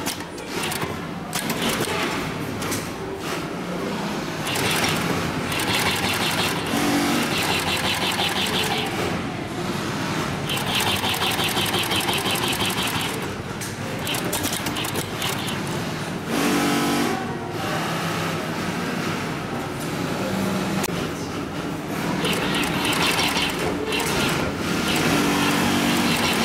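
Twin-needle post-bed industrial sewing machine stitching leather with thick thread. It runs in three main stretches of rapid, even stitching, with pauses between them.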